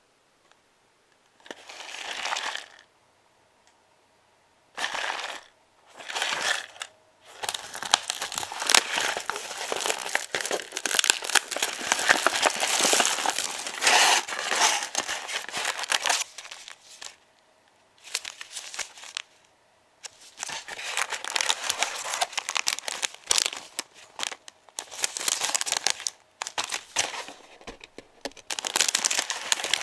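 Crinkling and rustling of an instant noodle bowl's plastic film wrap, peeled lid and sachets handled by hands in plastic gloves. It comes in stop-start bursts, with the longest stretch of about nine seconds near the middle.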